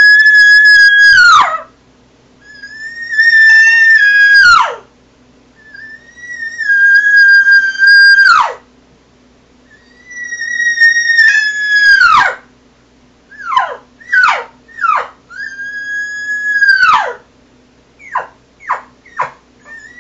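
Lost cow calls blown on a cow elk call. Four long, drawn-out mews, each held at one high pitch and then dropping off sharply at the end, are followed by a run of short falling chirps around one more held mew.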